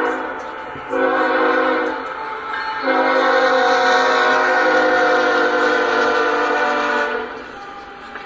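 Union Pacific freight locomotive's air horn blowing a multi-note chord in separate blasts at a road crossing, the last one held about four seconds and cut off about seven seconds in. After it comes the rolling noise of the tank cars passing.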